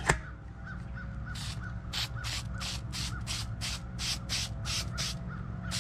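An aerosol can of 3M Super 77 spray adhesive sputtering out in short hissing spurts, about three a second, rather than a steady spray, after a sharp click at the start.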